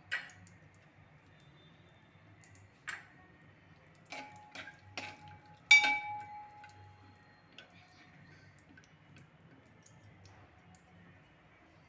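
Steel spoon clinking against a metal pan while stirring cashews and almonds frying in ghee: a handful of scattered clinks, the loudest about six seconds in, ringing briefly.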